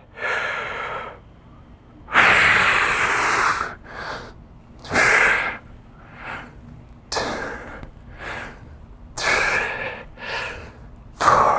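A man breathing hard with each rep of an overhead press: loud, forceful exhales about every two seconds, with shorter, fainter breaths in between; the first long exhale is the loudest.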